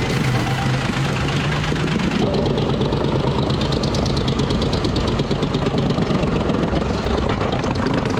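An engine running steadily, its tone changing about two seconds in.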